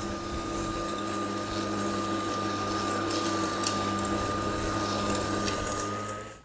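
Atlas 80V cordless brushless self-propelled lawn mower running while cutting grass: a steady electric motor and blade hum with a thin high whine over it.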